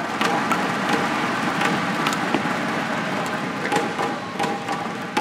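Badminton shuttlecock struck back and forth with rackets: a string of sharp, unevenly spaced hits over the steady background noise of a sports hall.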